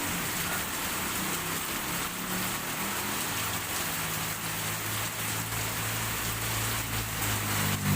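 Heavy rain falling steadily on a road surface, with a vehicle engine humming low beneath it, growing stronger in the second half.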